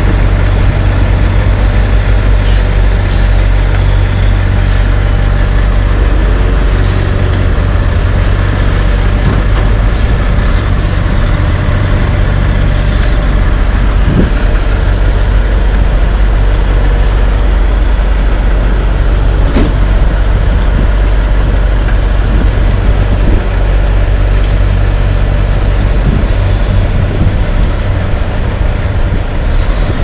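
Heavy dump truck's diesel engine running close by, a steady low rumble as the truck moves slowly.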